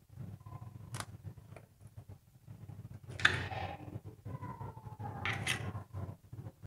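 A hen's egg being cracked and broken open over a glass mixing bowl: a sharp tap about a second in, then the shell cracking apart about three seconds in, with a smaller crackle of shell near the end.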